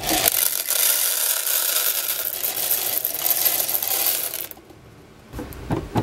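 Whole coffee beans poured from a metal cup into the plastic bean hopper of a Miele CM6310 coffee machine. It makes a dense rattling cascade lasting about four seconds, followed by a couple of light knocks near the end.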